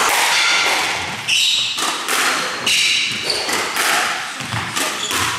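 Squash rally: the rubber ball smacking off racquets and the court walls in sharp hits about a second apart, with short high squeaks from shoes on the wooden court floor between them.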